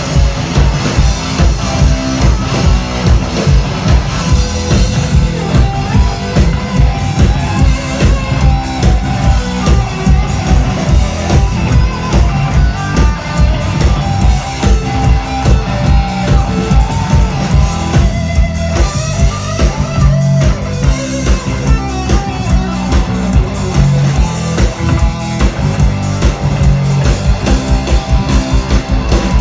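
Live rock band playing an instrumental passage with no vocals: electric guitar over bass and a drum kit keeping a steady beat.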